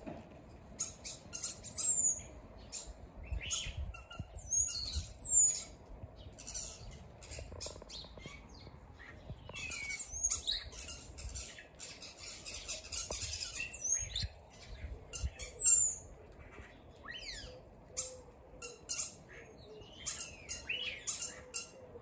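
A flock of European starlings calling: a busy mix of clicks, short whistles and sliding whistled notes, thickening into dense chatter for a few seconds near the middle.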